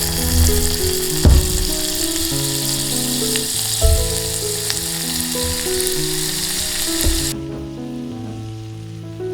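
Food frying in a hot pan: a steady sizzle with a few dull knocks, cutting off suddenly about seven seconds in.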